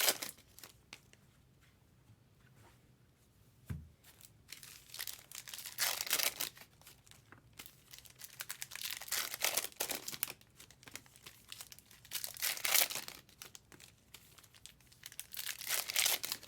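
Trading card pack wrappers being torn open and crinkled by hand, in irregular bursts every few seconds.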